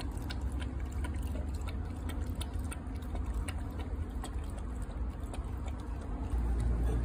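Australian Kelpie puppy lapping water from a bowl: quick, irregular wet laps and splashes, several a second. A low steady rumble runs underneath and grows louder near the end.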